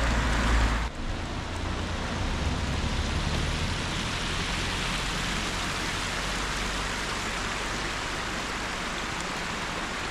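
Shallow stream water spilling over a low sill across a stony bed, a steady rushing hiss. Wind rumbles on the microphone for about the first second.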